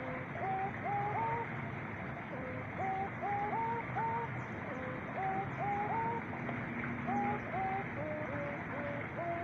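Doves cooing: short notes in loose groups of two or three, each group stepping up in pitch, repeated at uneven intervals, with a second, lower voice answering.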